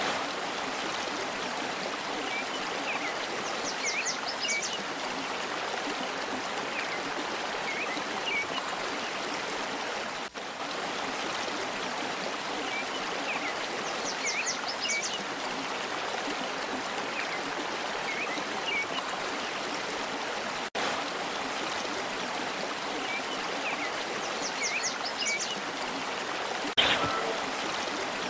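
Steady flowing-water ambience with small birds chirping, a looped recording that repeats about every ten seconds. A brief sharp hit sounds near the end.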